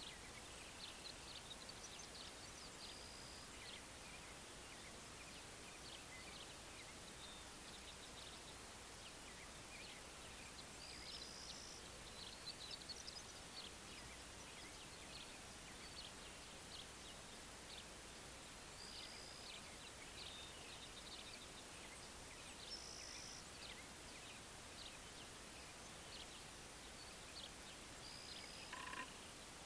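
Faint birdsong over a steady hiss: scattered short chirps, with a brief held whistled note every few seconds.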